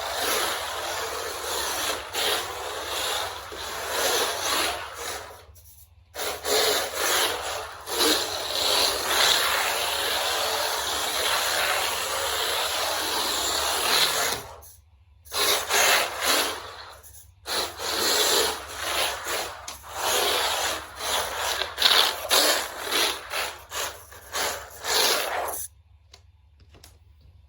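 Mini RC car running on hard 3D-printed plastic tires, giving a rasping, scraping rolling noise. It stops and starts several times and cuts off near the end.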